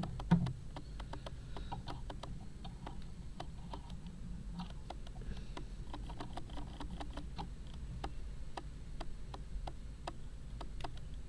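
Video camera's autofocus clicking as it struggles to focus: a run of small, irregular clicks, a few a second. One louder knock about a third of a second in.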